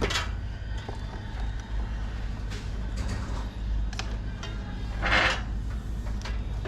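Handling noises during work on a tubeless bike tire: scattered light clicks and knocks over a steady low hum, with a brief rustle about five seconds in.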